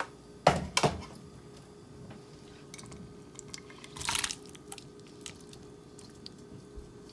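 Stir-fried shrimp being scraped out of a wok into a ceramic bowl with a spatula. Two sharp knocks come about half a second in, then a wet scrape and slither about four seconds in, with light clicks of the spatula in between.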